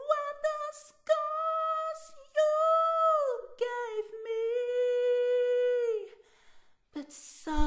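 Unaccompanied solo voice singing long, drawn-out notes without clear words, several held phrases that slide down at their ends, with a brief low thump near the end.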